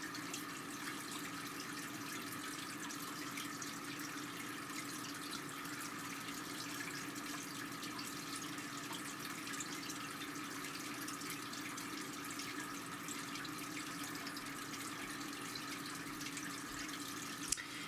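Steady background hiss with a constant low hum underneath, unchanging throughout, with no distinct events.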